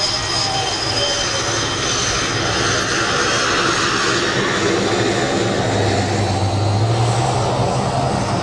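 MiG-21UM trainer's turbojet engine running at taxi power as the jet taxis past: steady jet noise with a high whine. About six seconds in the low rumble grows as the tailpipe turns toward the listener.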